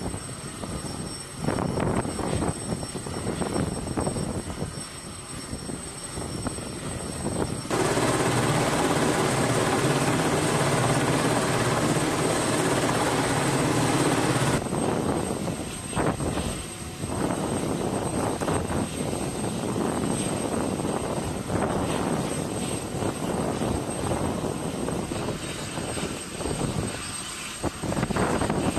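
Aircraft carrier flight deck noise: aircraft engines running, with a thin steady high whine over a rushing, fluctuating din. For about seven seconds in the middle a louder, steadier engine sound cuts in and then cuts out abruptly.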